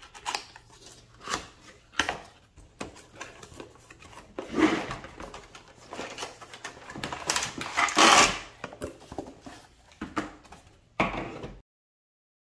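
Cardboard box being opened and handled by hand: irregular rustling, scraping and small taps of card and plastic packaging, with two louder bursts of handling in the middle. Near the end the sound cuts off abruptly to silence.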